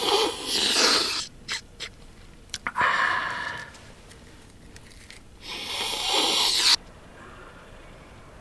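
A man snorting a line of powder through a rolled tube: three long, harsh sniffs through the nose, the last cut off suddenly.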